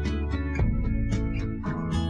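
Background music: guitar chords strummed in a quick, steady rhythm.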